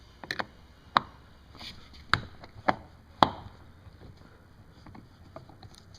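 A Phillips screwdriver working a screw out of a car's plastic door trim: a handful of sharp clicks and taps, about a second apart, then fainter ticks.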